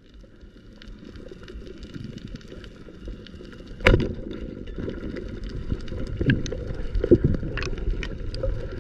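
Underwater sound heard through a camera housing: a steady low rumble of water with scattered small clicks, and one sharp snap about four seconds in as a speargun is fired at a goatfish.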